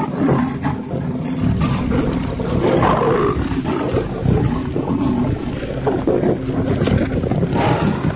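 Lions growling and snarling without a break in a fight over a carcass: a pride attacking a lone lioness to keep her off its kill.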